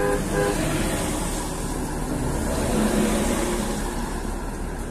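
Steady road noise heard inside a moving car on a wet road, with oncoming military trucks and an armoured vehicle passing close by; the passing swell peaks about three seconds in. Two short beeps sound near the start.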